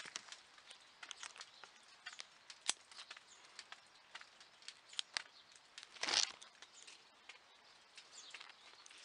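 Grape vine leaves rustling and scattered light ticks and taps, with one louder rustle about six seconds in.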